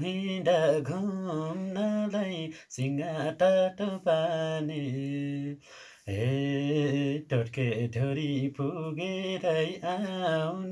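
A man singing a Nepali song unaccompanied, in long held phrases with a wavering pitch, pausing briefly for breath about 3 seconds in and again about 6 seconds in.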